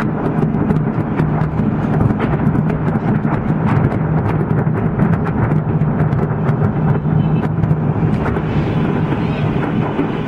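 Continuous loud rumble of a large explosion, with many scattered crackles.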